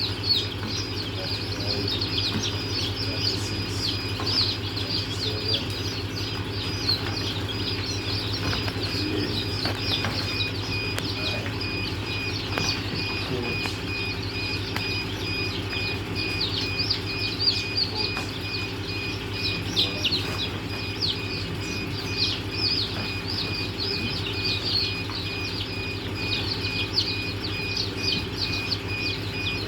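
Many newly hatched chicks peeping at once: dense, overlapping short high cheeps that fall in pitch, over a steady low hum and a thin steady high whine.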